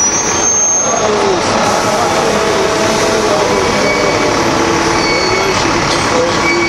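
Men chanting a Hebrew prayer, with drawn-out wavering held notes.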